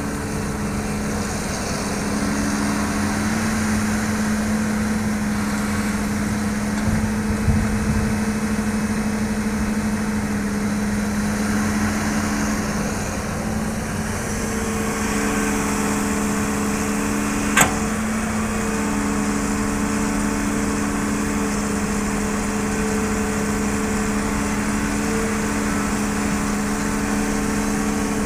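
Diesel engine of a Hitachi crawler excavator running at a steady hum as it digs and loads soil. A single sharp click is heard about two-thirds of the way through.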